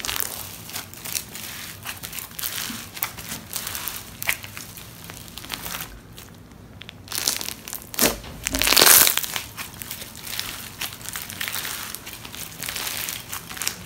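Blue crunchy slime packed with slushie beads being squeezed, folded and stretched by hand, giving a dense run of small crackles and pops. There is a short lull about six seconds in, then a louder stretch of crackling about eight seconds in.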